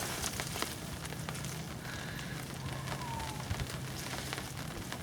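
Rain falling, with many scattered sharp drop ticks over a steady hiss.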